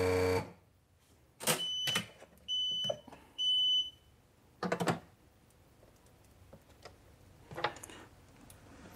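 Vaquform DT2 vacuum former beeping twice: two short, high electronic beeps about a second apart. A few brief clunks and bursts of noise come before and after the beeps.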